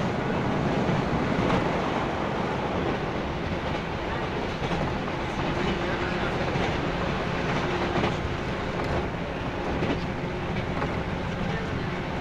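Running noise of a JNR 165 series electric multiple unit heard from inside the passenger car: a steady rumble of wheels on rail with occasional clicks over rail joints.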